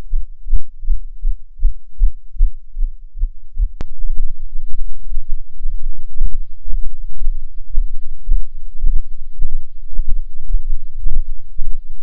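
Footfalls picked up by a fibre-optic distributed acoustic sensor cable and heard as low thuds. At first they come as a fast, even pulse. After a sharp click about four seconds in, they turn louder and irregular over a steady hiss.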